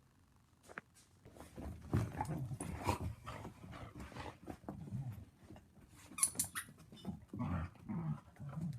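A dog making a string of low, rough vocal sounds, starting about a second in, with a few sharp clicks near the middle.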